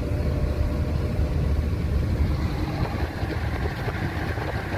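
Car on the move, heard from inside the cabin: a steady low rumble of engine and road noise.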